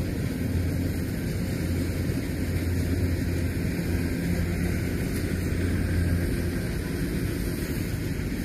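Kubota DC-93 combine harvester running steadily as it cuts rice, a continuous engine drone with a low hum.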